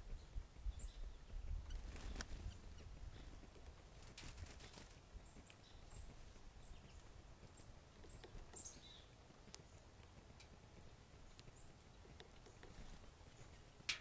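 Faint backyard birdsong: scattered short, high chirps and calls from several small birds, with a few sharp taps, the loudest near the end, and a low rumble in the first couple of seconds.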